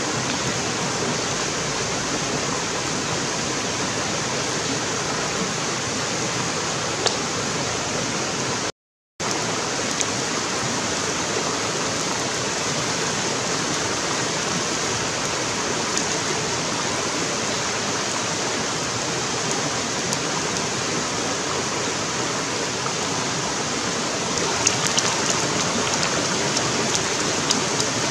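Shallow stream rushing steadily over rocks, with a few light ticks near the end. The sound cuts out briefly about nine seconds in.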